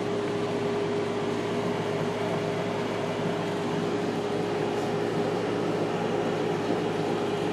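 Cooling fans of a powered-up Tevo Tornado 3D printer running, a steady whirring hum with a constant tone.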